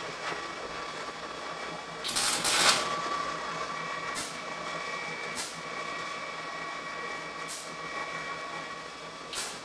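Wire-feed welder tack-welding a bolt onto a square-tube steel frame: a loud burst of arc noise under a second long about two seconds in, then four brief spits of arc spread through the rest, over a steady faint whine.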